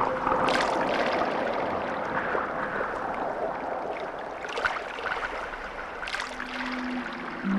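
Rushing water with brief splashes now and then, the water sound effect that opens the background music track; a faint low steady tone comes in near the end.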